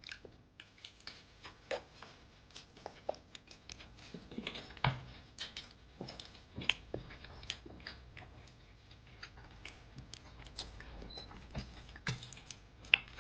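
Scattered light clicks and taps of small objects being handled, with a few slightly louder knocks at irregular intervals.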